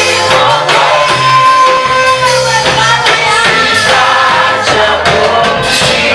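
Gospel praise-and-worship music: voices singing together over a band, with regular percussion strikes.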